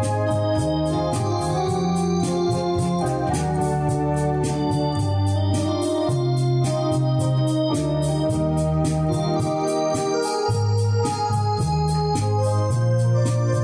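Two-manual home electronic organ playing: sustained chords and a melody over low bass notes that change about every second, with a steady percussive beat.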